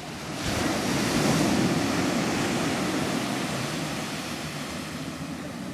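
Ocean surf breaking on a sandy beach: a wave's wash swells about half a second in, then slowly fades.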